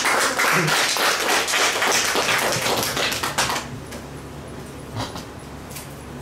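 A small audience clapping, dying away about three and a half seconds in, followed by a couple of faint knocks.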